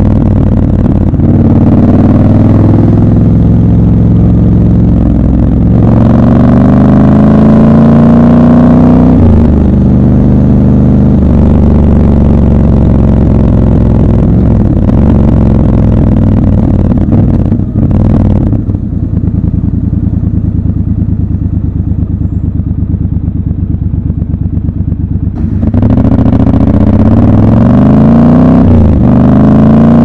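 Triumph Scrambler 1200 XC's 1200 cc parallel-twin engine, heard from the rider's seat, pulling up through the gears: its pitch rises in repeated sweeps, each cut short by a gear change. Past the middle it drops to a lower, quieter note for several seconds, then climbs again through the gears near the end.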